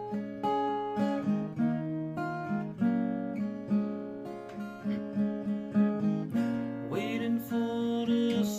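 Acoustic guitar playing an instrumental passage between sung lines, with plucked and strummed chords at a slow, steady pace.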